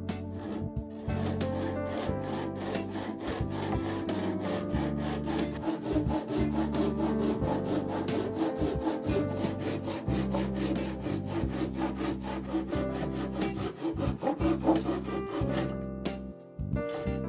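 Japanese handsaw sawing through a wooden block in a saw guide: a steady run of rhythmic rasping strokes, with a brief pause about sixteen seconds in.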